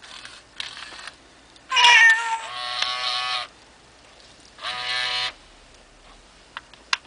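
Hasbro FurReal Friends Lucky toy cat giving electronic meows: a loud meow about two seconds in that runs into a long, level note, and a second, shorter meow about five seconds in.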